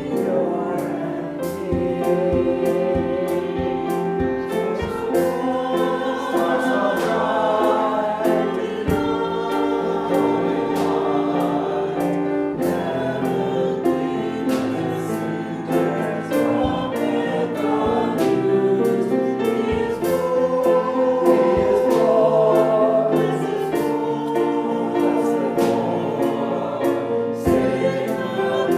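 Choir singing a hymn with accompaniment, steady throughout.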